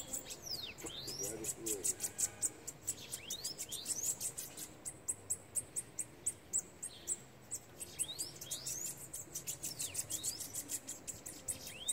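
Caged bananaquits (sibites) singing against each other: fast, high-pitched ticking trills mixed with quick rising and falling whistled sweeps, continuing throughout.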